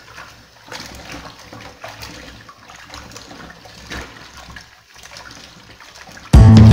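Tap water running into a plastic bowl while hands swish and rub pieces of peeled cassava in it, a wet splashing wash. Near the end, loud guitar music starts suddenly.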